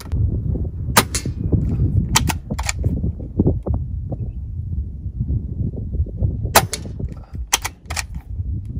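Gamo Arrow .22 PCP air rifle with a shrouded barrel being fired in a string: sharp reports in clusters, about a second in, two to three seconds in, and twice more in the second half, over a low steady rumble.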